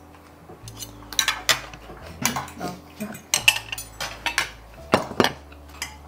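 Cutlery clinking and scraping against plates and serving dishes during a meal: a run of irregular sharp clinks and taps, the loudest about three and a half and five seconds in.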